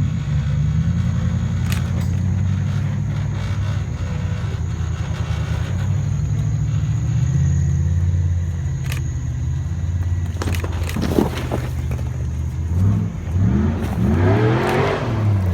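Jeep Wrangler engine running at low revs while crawling, with a few sharp knocks, then revved up and down several times near the end.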